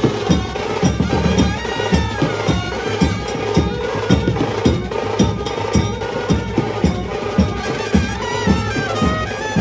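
Indian street brass band playing: trumpets and saxophones carry a melody over a steady beat of bass drum and hand percussion.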